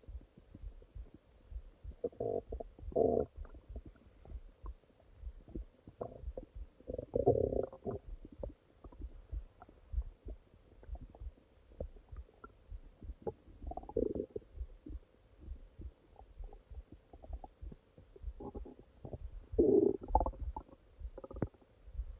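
A person's stomach growling and gurgling in separate bursts a few seconds apart, the loudest near the middle and again near the end, with soft low clicks between them.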